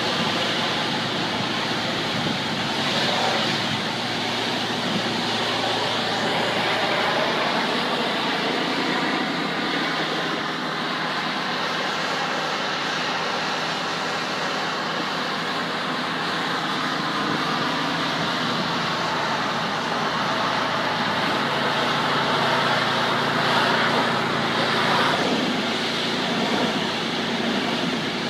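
Pressure washer running steadily: an engine drone under the hiss of the water spray.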